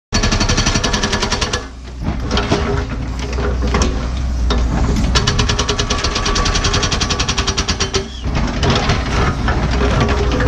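NPK hydraulic breaker on a Cat 314E excavator pounding hard bedrock in rapid, rattling blows over the excavator's steady diesel engine. It cuts in abruptly, and the hammering drops off briefly twice, about two and eight seconds in.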